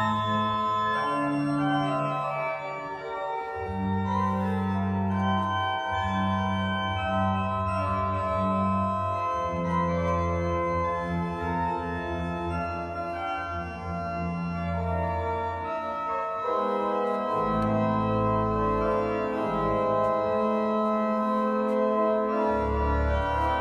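Church organ being played: sustained bass notes held for several seconds at a time under chords and moving upper lines. About two-thirds through, the bass drops out briefly, then returns lower.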